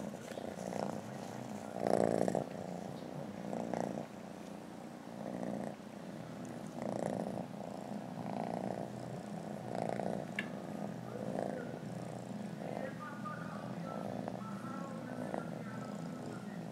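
Kitten purring steadily while being scratched under the chin, the purr swelling and easing about every second and a half with its breathing.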